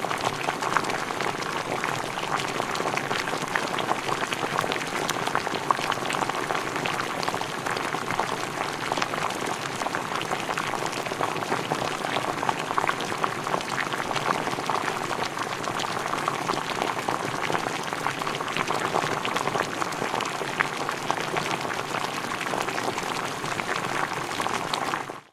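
Food boiling in a pot: a steady dense bubbling with many small pops, which cuts off abruptly at the end.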